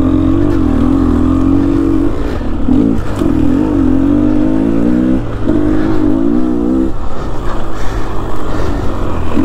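Dirt bike engine running under throttle on the trail, steady in pitch with a few brief drops and changes as the throttle is eased and opened again.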